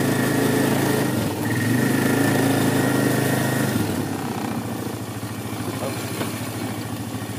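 Four-wheeler engine running under throttle while dragging a tree on a rope, then easing back to a lower idle a little under four seconds in.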